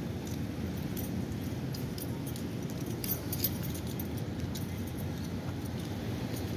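Keys jingling in scattered light clicks over a steady low rumble.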